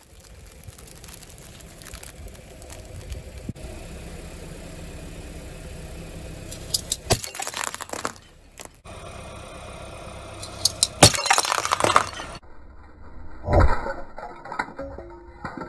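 A car's tyre rolling over and crushing brittle objects under a low engine rumble. Sharp cracking and breaking comes in two clusters, about seven seconds in and again about eleven seconds in.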